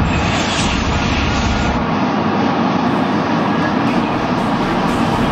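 Maglev train running past at high speed: a loud, steady, jet-like rushing noise, its deep rumble thinning out about two seconds in.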